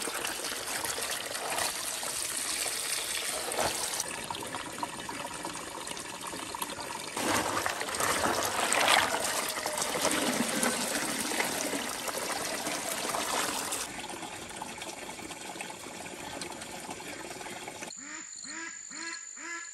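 A stream of water pouring into a plastic basin of live snails, splashing and churning as hands stir and rinse them. The water sound stops near the end.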